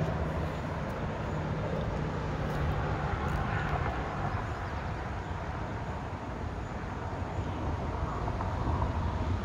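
Highway traffic, tractor-trailers rushing by on the interstate: a steady rumbling rush with a low engine drone beneath it.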